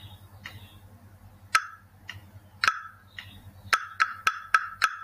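Wooden tick-tock block (kayu tiktok) struck in a simple rhythm exercise: two single knocks about a second apart, then a quick run of five knocks near the end. Softer clicks between them keep the beat through the rests.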